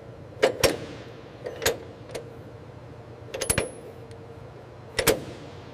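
Sharp metallic clicks and clinks of missile launcher latching hardware, a few single clicks, then a quick cluster about three and a half seconds in and one more near the end, over a low steady hum.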